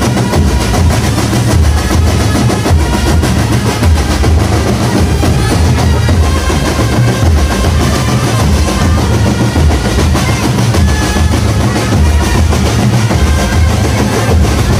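Marching drumband playing loud, dense percussion: bass drums thumping under rolling snare drums, without a break.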